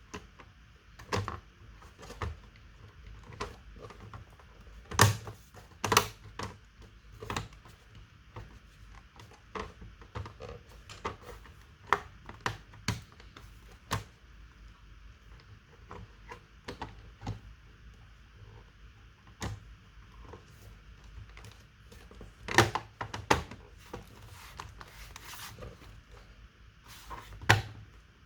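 Irregular clicks and light knocks from a laptop being handled, a few sharper knocks standing out about five and six seconds in, in the last quarter, and near the end.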